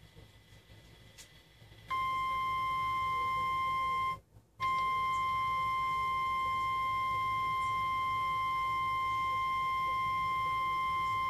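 NOAA Weather Radio 1050 Hz alert tone, the attention signal that announces an emergency alert message. It is a loud, steady single tone that starts about two seconds in, drops out for about half a second soon after, then holds steady. A faint low hum comes before it.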